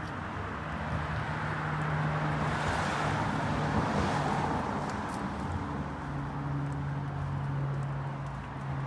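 A car's engine and tyre noise on the street, swelling over the first few seconds and easing off, over a steady low engine hum that shifts slightly in pitch about two-thirds of the way through.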